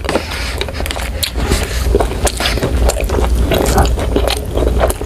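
Close-miked chewing of a mouthful of food, with irregular wet smacks and clicks of the mouth, over a low steady hum.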